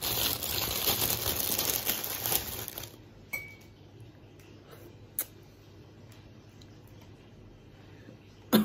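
Clear plastic bread bag crinkling loudly for about three seconds as a bread roll is pulled out of it. After that it is quiet apart from a few small clicks and one sharp knock near the end.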